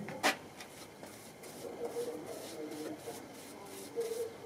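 A paintbrush loaded from a glass bowl with one sharp tap near the start, then brushing linseed oil onto an oak half wine barrel in a run of short, scratchy strokes.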